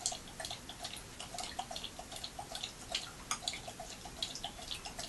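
Old English Sheepdog lapping liquid from a stainless steel bowl: a steady run of wet laps, about four or five a second.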